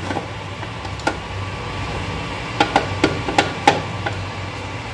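Electric mixer grinder running with a steady low hum as it grinds soaked red chillies, garlic, ginger and ice cubes in its steel jar. Several sharp knocks come from the jar, including two quick pairs in the second half.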